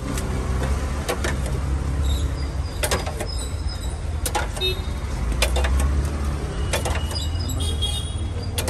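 Street-side ambience of steady low traffic rumble, with scattered clinks of a steel ladle against steel pots and plate as curd is served onto pani puri.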